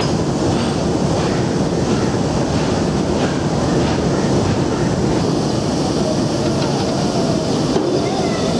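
Freight train of empty open-top wagons rolling past at close range: a loud, steady rumble of steel wheels on rail, with faint regular clacks.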